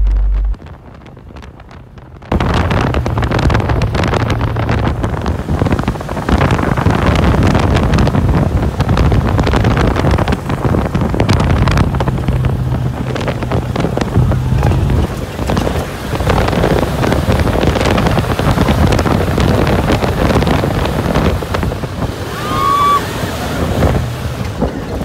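Wind rushing over the microphone and the dune buggy's engine running as it drives fast across the sand, starting about two seconds in. Near the end there is a brief high-pitched shout.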